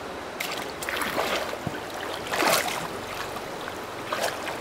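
Water splashing and sloshing in several surges over a steady watery background, the loudest about halfway through.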